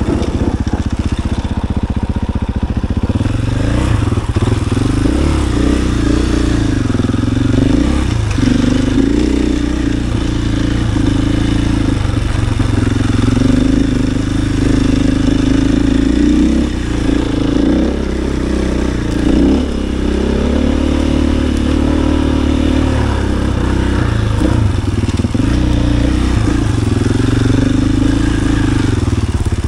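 KTM EXC-F 500 single-cylinder four-stroke enduro motorcycle engine running under way. Its note rises and falls again and again as the throttle opens and closes, with short dips where it eases off.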